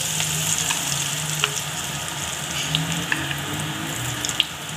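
Battered onion pakoras deep-frying in hot oil in a wok: a steady sizzle with scattered small pops and crackles.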